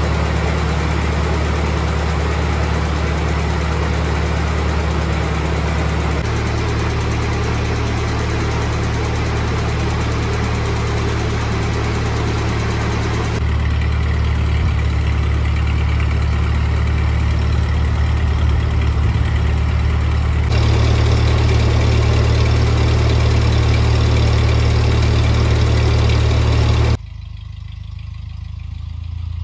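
1948 Ford 8N tractor's four-cylinder flathead engine idling steadily. The engine note changes abruptly a few times, and near the end it drops in level and sounds more distant.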